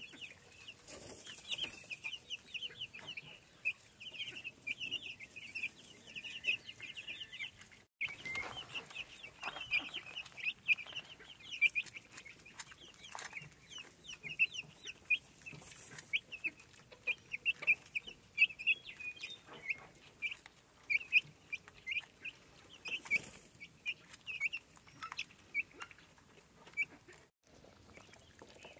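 A flock of young Cornish Cross meat chicks peeping continuously, many short high calls overlapping, with light taps as they peck at feed in a metal trough.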